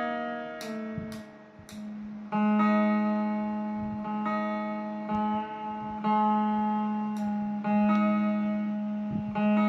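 Electric two-string phin (Isan lute) with its open strings plucked again and again, each note left to ring for a second or two while a tuning peg is turned: the strings are being tuned, and the pitch shifts slightly between plucks. A few faint clicks come in the first couple of seconds.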